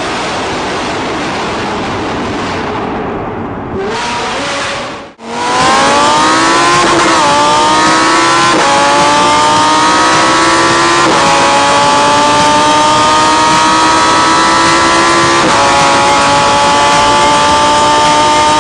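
Naturally aspirated V12 sports car engine accelerating hard through the gears. After a brief drop-out about five seconds in, the engine note climbs steadily in each gear and dips at each of four upshifts, the later gears climbing more slowly.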